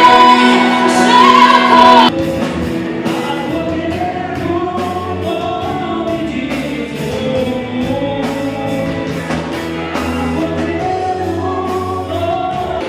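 Live gospel band music with singing. A loud held sung note cuts off abruptly about two seconds in, and a quieter sung passage over a steady drum beat follows.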